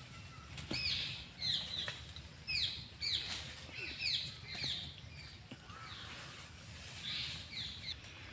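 A series of short, high-pitched squeaky calls, each falling in pitch, about two a second, bunched in the first half with a few more near the end.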